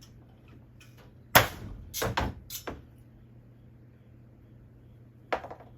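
Sharp clicks and knocks from handling a hand-operated percussion cap maker and small formed aluminum caps: one loud knock about a second and a half in, a quick few more around two seconds, and one more near the end.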